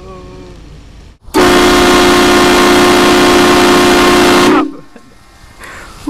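A vehicle-mounted train horn blasts once for about three seconds, very loud and distorted, sounding a chord of several steady notes that starts and stops abruptly.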